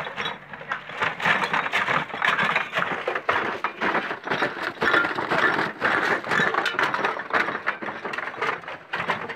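Household rubbish crackling and crunching as it is trodden down and pressed into plastic wheelie bins, a dense run of irregular snaps and crunches.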